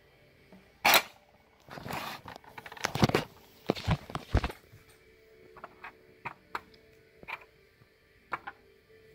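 Small plastic toys being handled and set down by hand: a sharp click about a second in, a few seconds of rustling and scraping, then light scattered taps.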